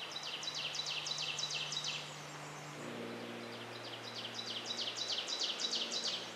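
A songbird singing two trilled phrases, each a rapid run of repeated high notes at about five a second for two to three seconds, with a short pause between them.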